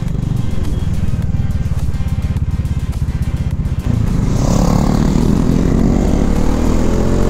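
Motorcycle engine heard from the rider's seat, running low and steady in slow traffic, then accelerating from about four seconds in with its pitch rising steadily, along with wind noise on the microphone.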